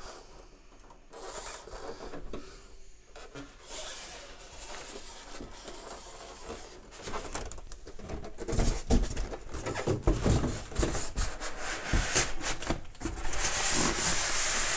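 Large styrofoam packing inserts rubbing and scraping against each other and against cardboard as they are worked back into the box, with a few dull knocks. It gets louder about halfway through.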